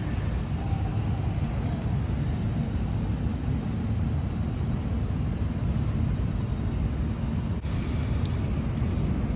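Steady low rumbling noise, with a brief dropout about seven and a half seconds in.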